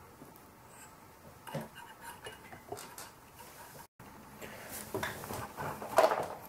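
Soft scattered clicks and light metallic taps from handling a soldering iron and a small circuit board at a workbench. The sound drops out briefly about four seconds in, and the clicks are louder and closer together near the end.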